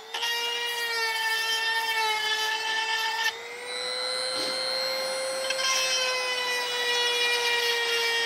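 Electric chainsaw-chain grinder running with a steady motor whine while its wheel grinds the chain's cutting teeth. About three seconds in the grinding noise drops away and the whine rises slightly, and near six seconds the grinding picks up again.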